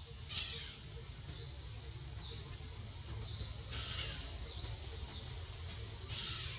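Birds chirping: short high calls every second or two, with three louder ones, over a steady low rumble.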